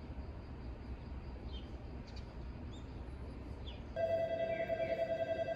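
Low, even outdoor rumble, then about four seconds in a loud electronic ringing tone starts suddenly and pulses rapidly, with short falling chirps over it.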